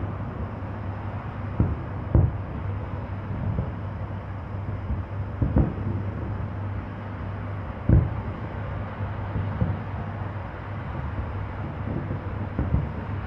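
Distant aerial firework shells bursting: a dull boom every second or two, at irregular intervals, the loudest about eight seconds in, over a steady low rumble.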